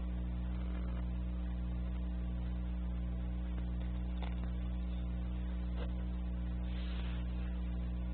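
A steady low electrical hum with a faint regular pulse, and a few soft rustles.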